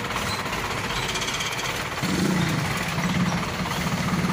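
Mitsubishi light truck's diesel engine running with a rattling clatter as the truck pulls away; about two seconds in the engine note rises, then holds steady.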